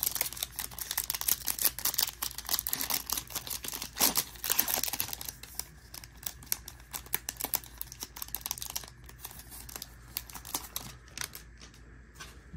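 Crinkly foil wrapper of a trading card pack being torn open and peeled back, dense crackling that is loudest about four seconds in, then the stack of cards slid out and handled with sparser light clicks.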